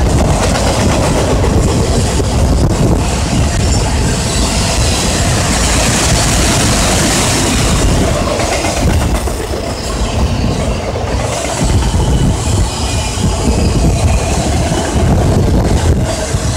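Freight train of autorack cars rolling past close by, steel wheels running on the rails with a steady, loud clatter and rumble.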